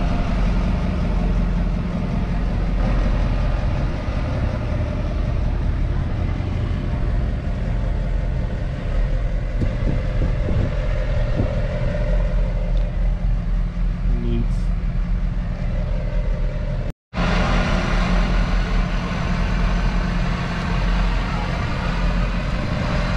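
A motor vehicle engine running with a steady low rumble. The sound drops out for a split second about 17 seconds in, then resumes with more hiss above the rumble.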